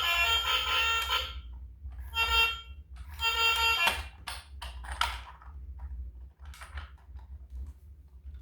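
Battery-powered toy vehicle's electronic sound chip sounding a steady, buzzy alarm-like tone that cuts off about a second in, then two short bursts of the same tone, followed by light clicks and rattles of plastic being handled.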